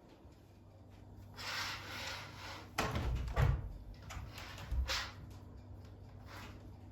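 A sliding, rubbing noise, then a few knocks and bumps of objects being handled. The loudest thump comes about halfway through and a lighter knock follows a couple of seconds later.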